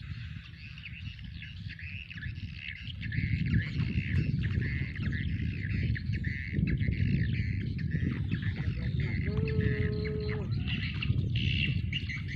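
Many birds chirping and twittering together over a low rumble that grows louder a few seconds in. About nine seconds in, a steady pitched tone sounds for about a second.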